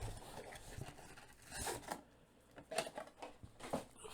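Handling noises from opening a trading-card box and packs: a rustle about one and a half seconds in, then a couple of sharp clicks.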